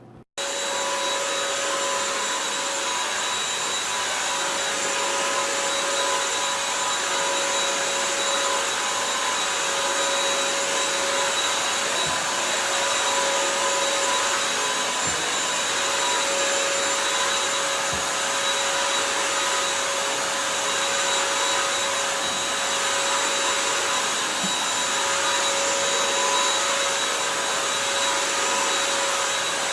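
Bissell CrossWave 1785A wet-dry vacuum running steadily, its motor giving a constant whine over a rush of air. The sound starts abruptly about half a second in.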